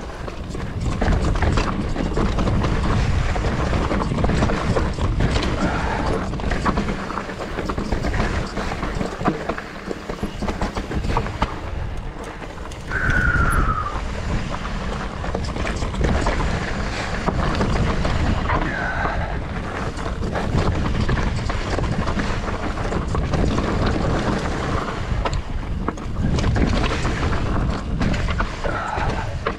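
Wind buffeting the camera microphone during a mountain bike ride, over the bike's rattle and tyre noise on a rocky trail, with a brief falling squeal about halfway through.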